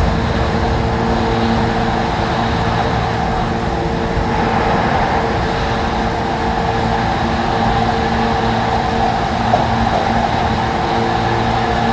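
Running noise of a JR 185 series electric train heard from aboard at speed: a steady rumble with a hum of several steady tones, part of which fades about seven seconds in.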